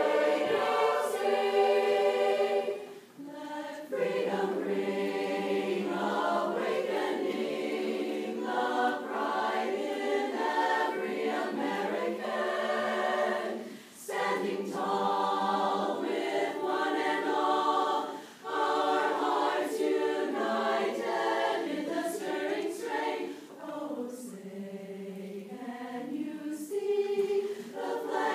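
A chorus singing a cappella in several phrases, with short breaks between them and a softer passage near the end.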